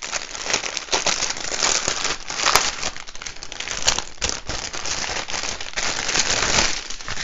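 Clear plastic packaging crinkling steadily as hands handle a bag and pull out a bundle of small plastic bags of diamond painting drills. Two sharper snaps stand out, about two and a half and four seconds in.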